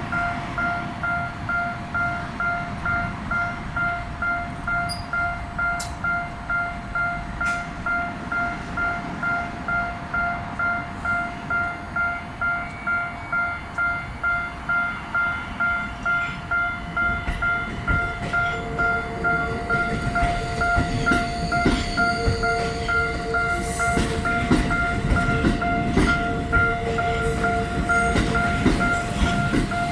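Railway level-crossing alarm ringing steadily, an electronic bell tone struck about twice a second. From about 17 seconds in, a Tokyo Metro Ginza Line 1000 series train crosses on a shunting move, its wheels rumbling and knocking over the rail joints under the bell.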